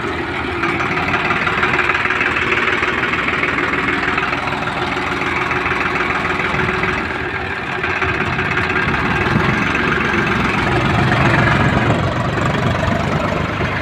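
Swaraj 735 FE tractor's three-cylinder diesel engine running up close as it pulls a heavily loaded trolley of soil over rough ground.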